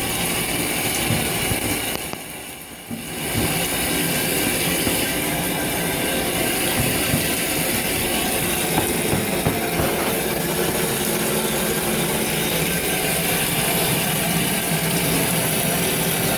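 Shower water running in a steady spray, briefly quieter about two seconds in.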